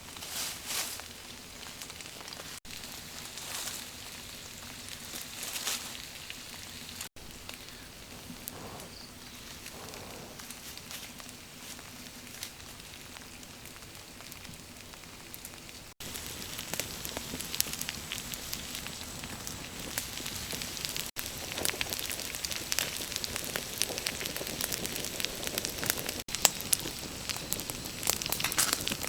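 Wood fire crackling and popping, with sizzling from an eel cooking on hot stone. The crackle is broken by several abrupt cuts and grows louder and busier about halfway through.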